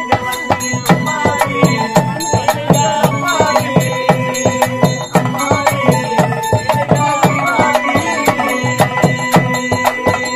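Traditional Tamil folk music: rapid, even drum strokes on a pambai double drum, with a steady held tone and a wavering melody line over the drumming.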